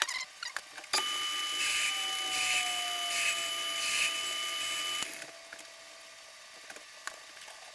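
An electric shop machine's motor running with a steady whine and a slow, even pulsing; it switches on abruptly about a second in and cuts off about four seconds later.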